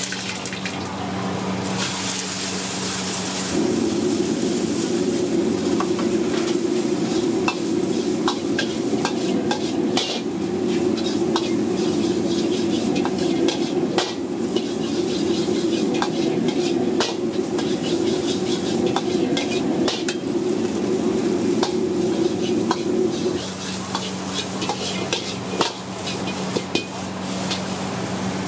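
Metal ladle scraping and clanking against a wok as fried rice is stir-fried over a high gas flame, with frying sizzle throughout. A burst of loud sizzling comes about two seconds in. A steady low rush from the wok burner grows louder a few seconds in and drops back about five seconds before the end.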